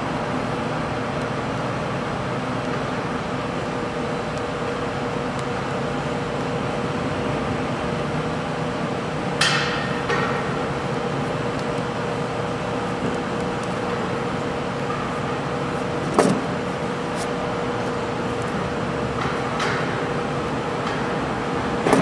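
Hand cutting pliers snipping and scraping at a wire over a steady mechanical hum: a short scraping cut about nine seconds in, a sharp click a few seconds later, and a smaller scrape near the end.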